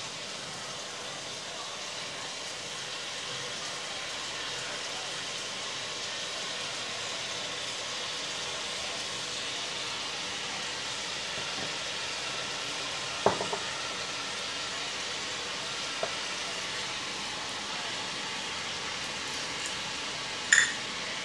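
Chicken pieces frying in oil in a wok, a steady sizzle, with a sharp click about thirteen seconds in, a fainter one a few seconds later and another near the end.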